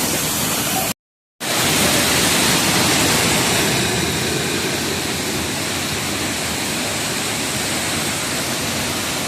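Steady rush of a waterfall, broken by a brief silence about a second in, then returning a little louder before settling.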